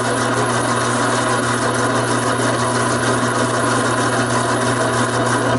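Taig micro lathe parting off a 7/8-inch mild steel bar with a spring-mounted parting blade: a steady rough cutting noise from the blade in the steel over a steady hum. The cutting noise stops abruptly at the very end, which the operator puts down to feeding a little too fast.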